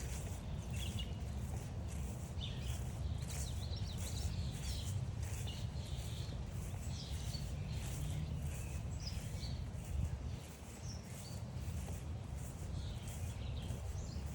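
Several wild birds singing and calling in short chirps and trills, over steady walking footsteps and a constant low rumble.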